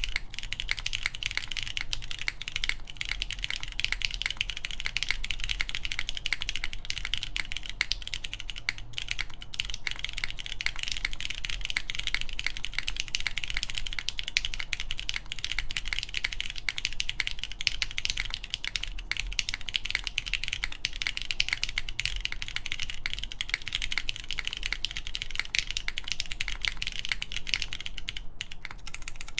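Steady typing on a SINGAKBD Kohaku mechanical keyboard with a polycarbonate case, full aluminium plate and lubed Cherry MX Brown switches under GMK keycaps: a dense, continuous stream of keystroke clicks.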